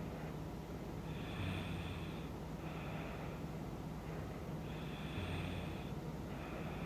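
A woman snoring in her sleep: two slow breath cycles, each a snore with a low rattle followed by a softer breathy hiss, repeating about every three and a half seconds.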